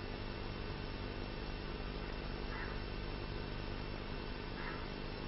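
Steady electrical mains hum with a faint hiss, picked up through the microphone and loudspeaker system. Two faint, brief sounds come about two and a half and four and a half seconds in.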